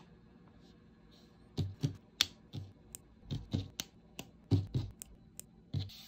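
Plastic parts of a Blokees Transformers snap-fit model kit being handled and pressed together on a table: an irregular run of sharp clicks and light knocks, starting about a second and a half in.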